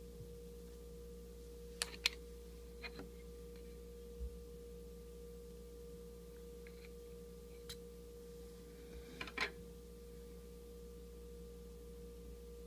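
Light plastic clicks and taps from an Edge Eyewear goggle's clear lens and prescription insert being handled and fitted to the frame. There are a couple of sharp clicks about two seconds in, two softer ones near three seconds, one near eight seconds and a quick cluster around nine and a half seconds, all over a steady faint electrical hum.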